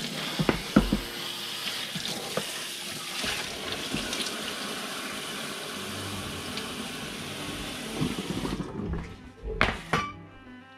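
Kitchen tap running steadily for about eight and a half seconds, then shut off sharply, with a few knocks and clatters at the start and a couple more shortly after it stops.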